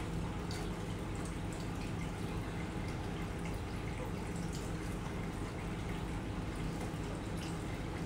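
Aquarium water trickling and dripping steadily, with a low hum underneath from the tank's running filter and aeration.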